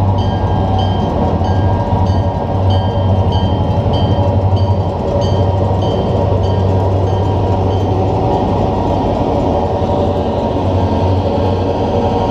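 Train running, with a loud, deep, steady engine hum. A high ringing ding repeats about twice a second and stops about halfway through.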